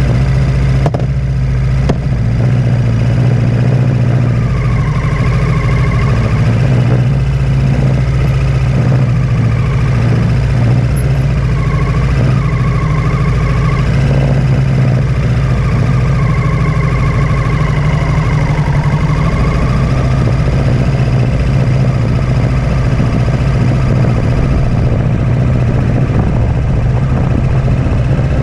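Kawasaki Z650's parallel-twin engine running at low, steady revs, a constant loud hum with no revving.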